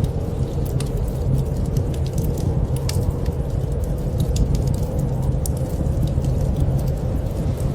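Wood fire crackling: irregular sharp pops and snaps scattered over a steady low rumble.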